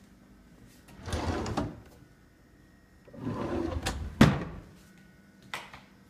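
Wooden kitchen drawer slid along its runners twice, the second slide ending in a sharp knock as it shuts, with a lighter click near the end.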